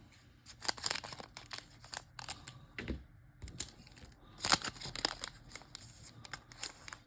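A trading card pack wrapper being torn open and crinkled by hand, an irregular run of rips and crackles.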